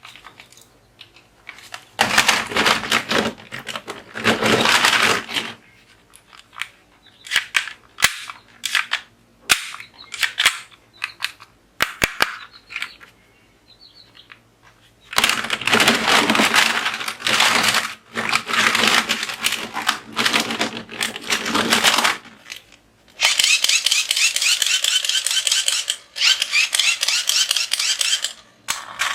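Toy guns firing: long bursts of rapid rattling, gunfire-like clicks, with scattered single clicks between them, and a last higher-pitched rattling burst near the end.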